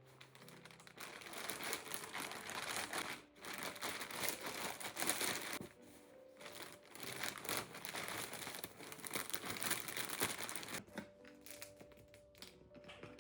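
Crinkling and rustling of handled material, in two or three long stretches with brief pauses, over soft background music.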